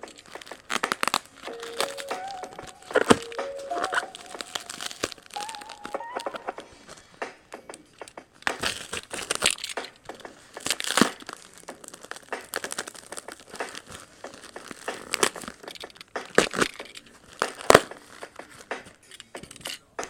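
A tape-wrapped cardboard parcel being cut and torn open by hand: irregular crinkling, ripping and crackling of packing tape and cardboard, with sharper cracks here and there. A short tune of stepped electronic tones plays faintly in the first few seconds.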